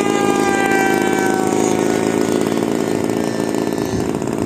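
Small model-aircraft engine of a 60-size RC P-51 Mustang running steadily at high revs, with a fast buzzing note and a higher whine that drops slightly in pitch over the first second and a half.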